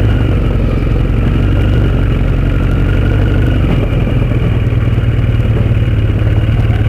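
Motorcycle engine running steadily at low speed while the bike rolls over brick paving, with a continuous rattle and rumble from the tyres and bike on the bricks.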